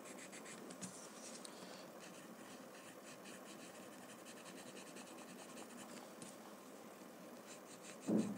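White chalk pencil scratching faintly across paper in many short strokes, with one brief louder sound near the end.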